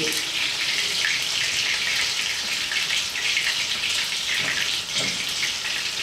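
Food sizzling in oil in a frying pan: a steady crackling hiss, with two soft knocks near the end.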